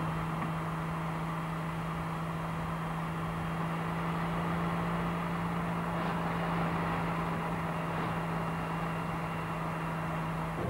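Steady driving noise of a car at motorway speed: a constant low hum with even road and wind noise, unchanging throughout.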